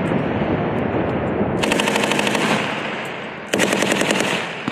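The long, fading echo of an explosive charge's blast, overlaid by two bursts of rapid automatic gunfire, each about a second long, starting about a second and a half in and again about three and a half seconds in.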